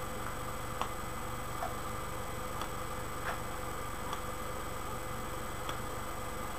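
Faint, soft mouth clicks and pops from a man puffing on a tobacco pipe, coming irregularly about a second apart over a steady hum and hiss.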